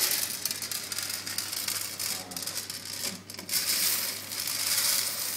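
Freshly roasted coffee beans pouring out of a stainless-steel mesh roaster basket onto a baking tray: a continuous dense rattle of many beans, with a short lull about three seconds in.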